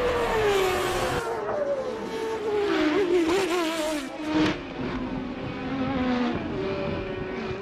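Formula One car engines on track, their pitch falling and rising as the cars pass and change gear, with a brief louder burst about four and a half seconds in.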